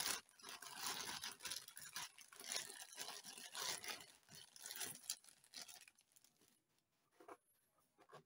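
Clear plastic bag crinkling and rustling as a pistol is pulled out of it by hand, dying away about six seconds in, followed by a couple of sharp clicks from handling near the end.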